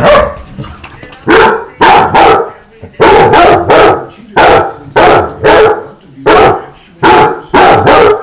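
Basset hounds barking loudly in rough play, a quick run of about fourteen sharp barks, often in twos and threes about half a second apart.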